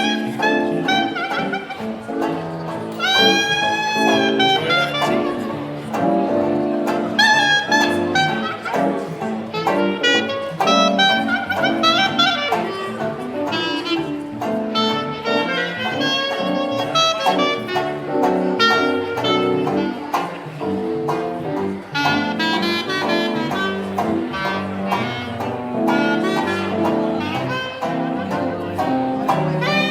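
A jazz band playing an instrumental number, with a saxophone-like melody line over brass and bass.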